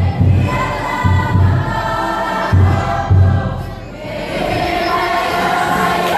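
A Cook Islands group singing together in chorus over deep drum beats. The drums drop out about three and a half seconds in, and the voices carry on alone.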